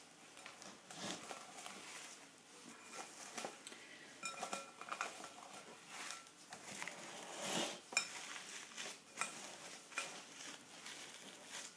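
Cling film being stretched and pressed over a bowl, with crinkling and scattered light clinks and knocks against the bowl, including a short ringing clink about four to five seconds in.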